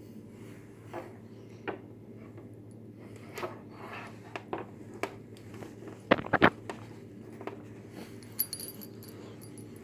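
Handling noise: a scattered string of light clicks and knocks, with a sharper cluster of knocks about six seconds in, over a steady low hum.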